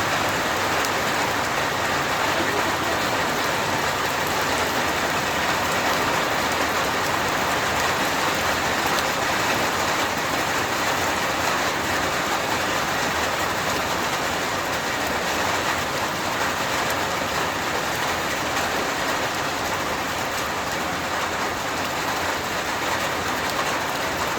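Rain falling steadily, a dense even hiss with no letup.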